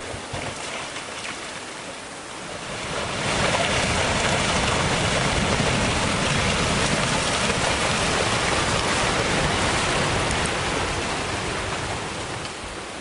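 A rock wall collapsing onto a highway in a rockslide: a loud rushing noise of falling rock and debris builds about three seconds in, holds for about eight seconds, then dies away near the end.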